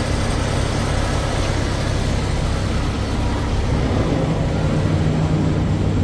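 Kenworth T680 semi-truck's diesel engine idling with a steady low rumble, which grows a little stronger about two-thirds of the way through.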